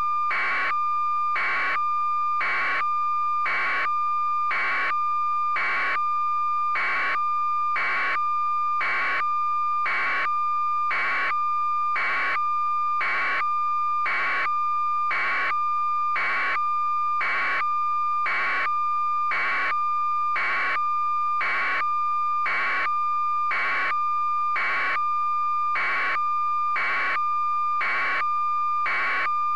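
Steady electronic tone with a fainter tone an octave above, overlaid by regular pulses of hiss about one and a half times a second, unchanging throughout: a technical signal on the audio track rather than a sound from the scene.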